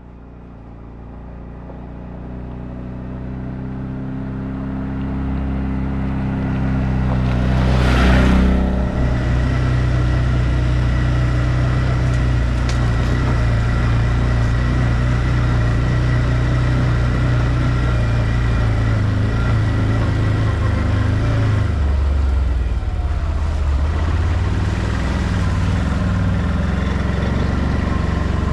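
ODES 650 ATV engine growing louder as it approaches, with a brief loud rush as it passes right over about eight seconds in. It then runs steadily while riding, its note shifting a little near the end.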